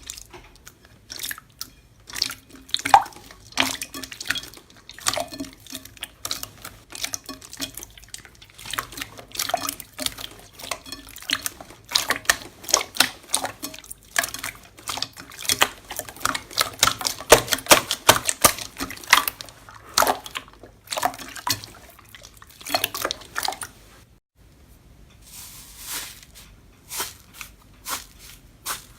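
Slime being squeezed, poked and stretched by hand: a dense, irregular run of wet clicks and pops, with a short lull about four-fifths of the way through.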